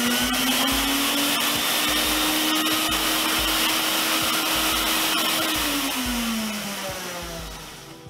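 Sirena water-filtration vacuum cleaner's motor running as a blower, air rushing out through the blower tip on the wand from the exhaust port. Its whine rises in pitch at the start, holds steady, then winds down and fades over the last couple of seconds.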